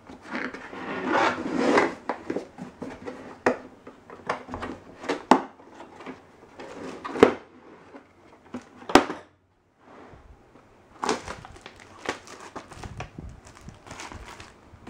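A hard plastic tool carrying case being handled and opened: rubbing, then a string of sharp plastic clicks and knocks as the latches are snapped and the lid lifted. Near the end comes a crinkling from the plastic-bagged manual being taken out.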